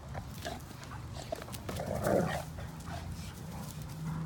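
Great Danes play-wrestling in dirt: short scuffling sounds, and about two seconds in, one dog lets out a brief play vocalization that falls in pitch.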